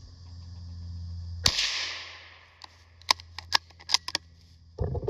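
A single gunshot about a second and a half in, its report echoing and dying away through the woods. A few sharp clicks follow, then rustling near the end.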